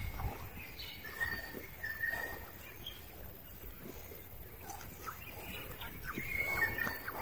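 Outdoor ambience with short, high bird chirps a few times and scattered light rustles and clicks.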